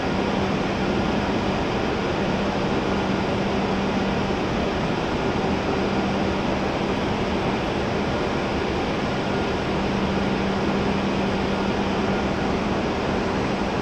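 W7 series Shinkansen standing at the platform with its air-conditioning and equipment fans running: a steady whir and hiss with a low hum that drops out and comes back a few times.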